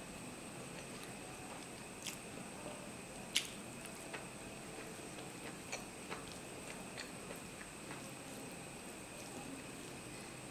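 Close-miked eating sounds: fingers mixing basmati rice into mutton curry on a steel plate, with soft chewing and a scatter of small sharp clicks at uneven intervals, the sharpest about three and a half seconds in.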